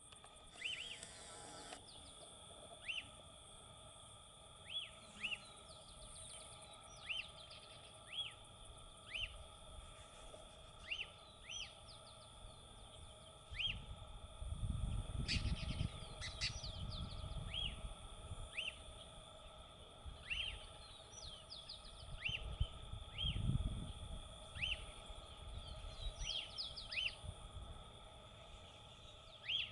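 Lesser elaenia (chibum) calling: a short, clear note repeated roughly once a second, over a steady high background tone. A low rumble comes in twice midway.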